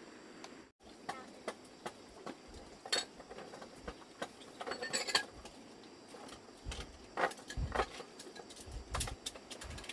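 Household items clinking and knocking together as they are handled, in scattered light strikes, a few of them ringing briefly.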